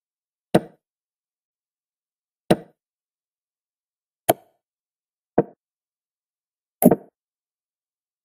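Digital chess board's piece-move sound effects: five short wooden knocks at uneven intervals as moves are played, the last one doubled.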